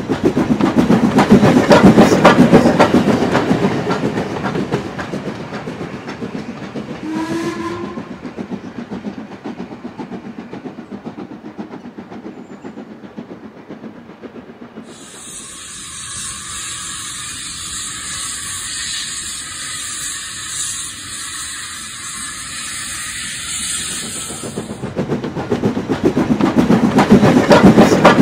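Model railway goods train rolling over the track with a fast clickety-clack of wheels on rail joints, loud at first, then fading. About seven seconds in a short whistle sounds, from about fifteen to twenty-five seconds the model steam locomotive gives a steady hiss of steam, and near the end the clatter rises again as the locomotive and its wagons run close by.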